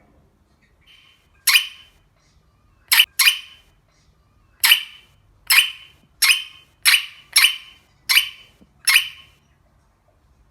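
An animal giving about ten short, harsh calls at irregular intervals, the first about a second and a half in.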